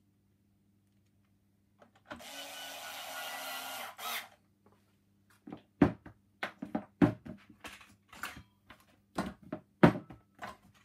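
A small electric screwdriver runs for about two seconds, driving one of the screws back into the steam vacuum's plastic housing. After a pause comes an irregular string of sharp clicks and knocks from tools and parts being handled.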